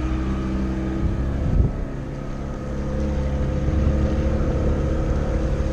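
A small passenger boat's engine running steadily under way, with water and wind noise. There is one brief knock about one and a half seconds in, and the engine grows slightly louder in the second half.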